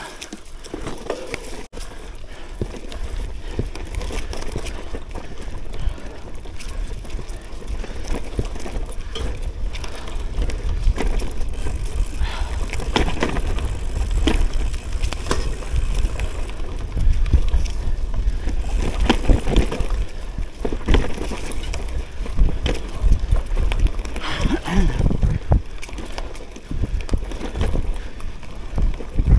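CUBE Cross Race gravel bike rolling over a bumpy dirt trail strewn with dry leaves: steady tyre and wind rumble with frequent clattering knocks as the bike jolts over bumps. It grows louder and rougher after about ten seconds.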